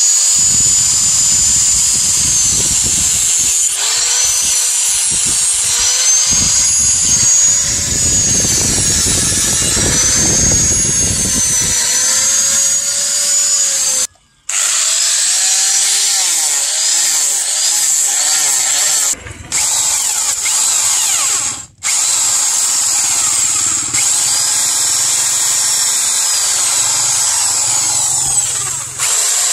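Electric angle grinder with a sanding disc working a wooden knife handle: its motor whine dips and rises as it bites, over a gritty rasp of abrasive on wood for the first dozen seconds. After a few abrupt cuts, power-tool motor whine runs on, ending with an electric drill boring through the wooden handle scale.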